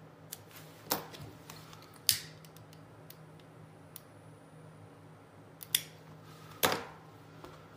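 A few sharp, separate clicks and snips from trimming a thread end with a small blade and flicking a plastic disposable lighter.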